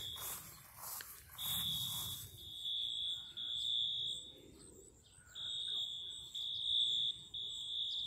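School fire alarm sounding: a high-pitched tone repeating in beeps of about a second each, with a gap of about a second midway.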